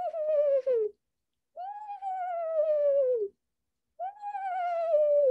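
A woman imitating the eastern screech owl's whinny call with her mouth: three wavering calls, each sliding down in pitch. The first ends about a second in, the second runs from about one and a half to three seconds, and the third begins near four seconds and is still going at the end.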